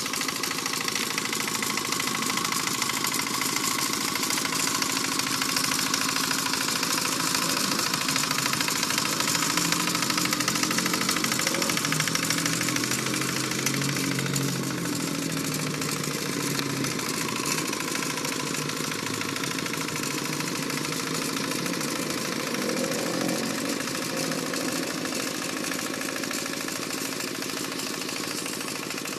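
Rice-paddy plough tractor engine running steadily while ploughing, its pitch wavering a little in the middle as the load changes.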